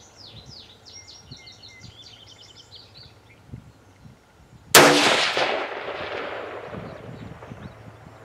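A single 5.56 rifle shot about four and a half seconds in, loud and sharp, its report rolling away in a long fading echo. Birds chirp before it.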